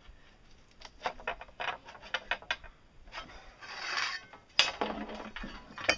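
Hand pipe bender working a metal pipe: a run of small clicks and creaks as the bend is finished, a scraping rub about four seconds in, then a sharp metallic clack, the loudest sound, a little after.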